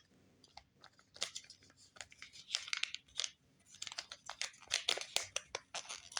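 Small plastic parts of a radio-controlled car being handled by hand: scattered light clicks and crinkly rustling, busier in the second half.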